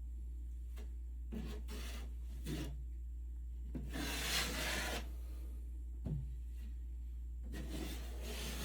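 Drywall knife scraping joint compound over a taped ceiling seam in a series of separate strokes, the longest about four seconds in, over a steady low hum.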